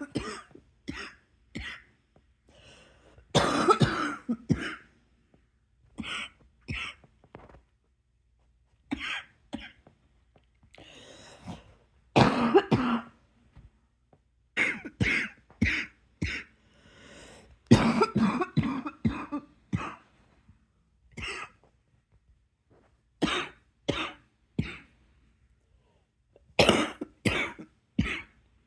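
A person in a prolonged coughing attack: repeated bouts of several hard coughs in quick succession, with short pauses and softer breaths between the bouts.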